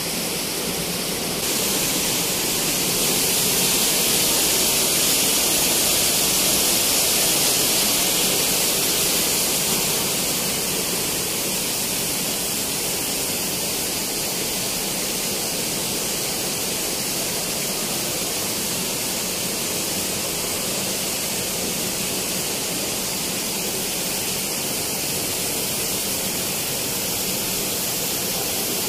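Steady rushing hiss of fountain jets spraying and splashing into a pond, swelling a little about two seconds in and easing back about ten seconds in.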